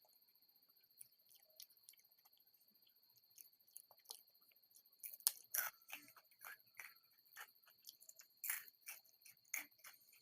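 Someone eating: faint, irregular crunches and mouth clicks, growing busier and louder about five seconds in, over a faint steady high-pitched whine.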